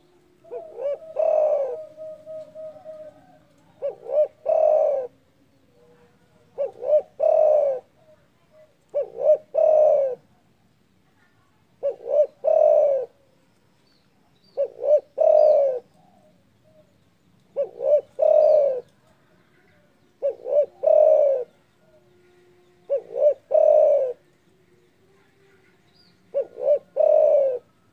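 Spotted dove (derkuku) cooing over and over, a phrase every two to three seconds. Each phrase is two quick short coos and then a longer, full coo.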